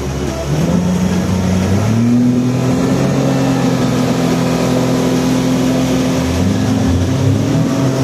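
An engine revving up in two steps over the first two seconds, then running at a steady pitch, its note wavering and dropping near the end.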